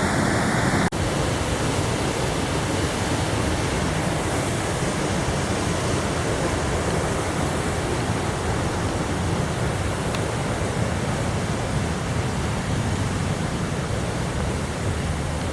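Waterfall rushing, a steady even roar of falling water, with a brief break about a second in where the sound shifts, as at a cut.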